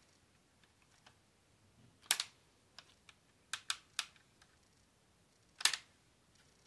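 Plastic clicks and snaps of a Lego-brick flintlock pistol's lock being worked by hand, as the hammer and trigger are moved. There is one sharp snap about two seconds in, a quick run of three clicks around three and a half to four seconds, and the loudest snap near the end.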